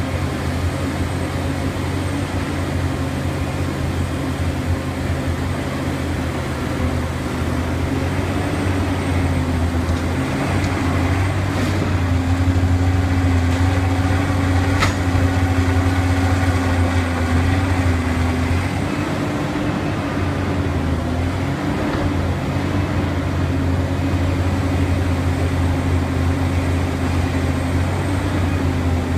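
Liebherr R 984 hydraulic excavator's diesel engine running steadily under digging load, its pitch wavering slightly in the middle as the machine swings and dumps. A single brief click about fifteen seconds in.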